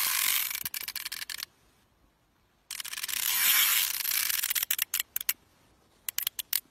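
Round baitcasting fishing reel ratcheting in rapid, buzzing clicks as line is pulled off the spool by a heavy hooked fish: a first run that stops about a second and a half in, a second run from about three seconds in that slows into separate clicks, then a few single clicks near the end.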